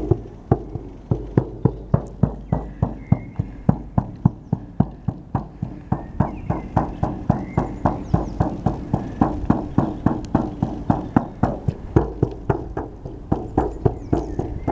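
Shaman's frame drum (buben) beaten in a steady, quick rhythm, about four strokes a second, each with a deep, resonant thud.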